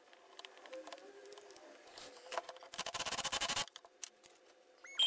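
Light knocks and clicks of a wooden board being handled and set against a slide miter saw's fence and table, with a short dense rattle about three seconds in.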